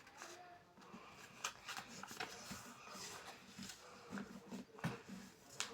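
Sheet of A4 paper being handled and folded, faint irregular rustles and light crinkles.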